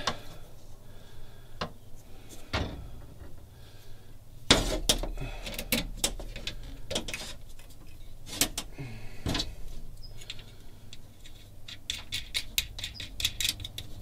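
Scattered clicks and light metallic clatter of battery-cable ring terminals and hardware being handled and fitted onto the studs of a battery disconnect switch, with a louder knock about four and a half seconds in and a quick run of clicks near the end.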